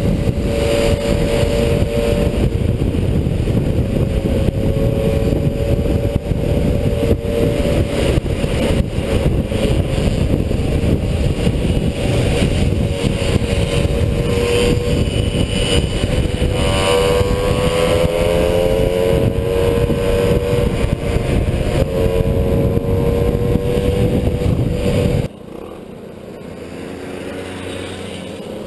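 A small two-stroke moped engine runs at steady road speed with heavy wind rush on the microphone, its pitch rising as it speeds up a little past halfway. About 25 seconds in the sound cuts abruptly to a much quieter roadside recording, where the mopeds are still far off.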